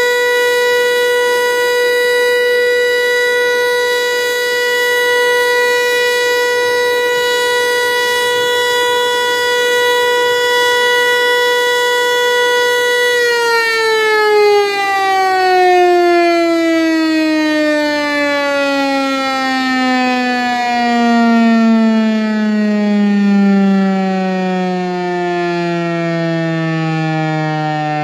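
Federal Signal Eclipse 8 outdoor warning siren sounding a steady, single-pitched tone, then from about halfway through winding down, its pitch falling slowly and smoothly to a low growl.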